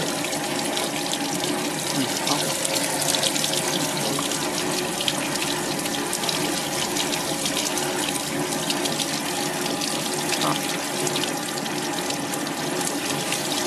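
Small desktop fish-skinning machine running with a steady rush of running water, a faint steady motor hum underneath.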